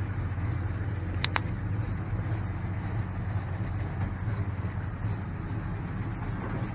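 V8 engine of a 1979 Pontiac Trans Am running steadily with a low rumble as the car is backed in. Two short sharp clicks about a second in.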